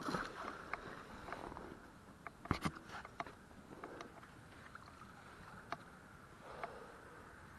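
A heavy fishing magnet splashing into shallow water about two and a half seconds in, followed by faint scattered clicks and water noise.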